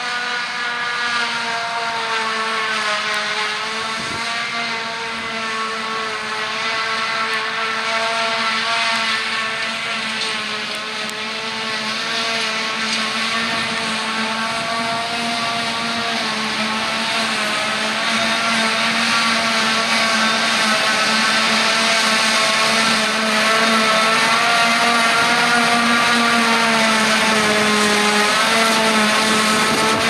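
Claas Jaguar 970 forage harvester chopping grass at work, with a John Deere tractor running alongside: a steady mechanical whine with many overtones over the engine noise. It grows louder in the second half.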